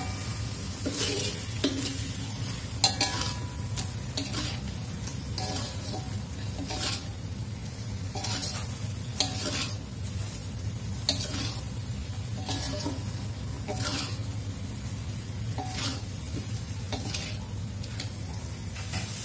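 Metal spatula stirring and scraping around a wok, knocking against the pan one or two times a second, over the sizzle of thick chilli sauce and fish frying as the sauce cooks down dry.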